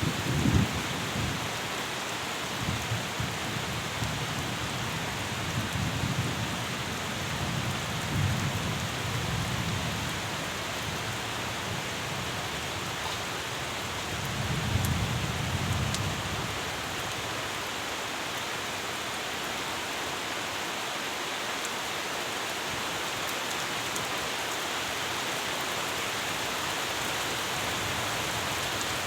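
Steady rain falling, with low rumbles of thunder in the first half, the strongest about eight and fifteen seconds in.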